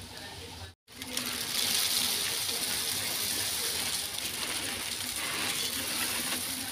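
Puffed rice poured from a plastic bag into a large aluminium pot: a steady rustling hiss of many light grains pattering down, with the bag crinkling. The sound cuts out for a moment just under a second in, then runs on steadily.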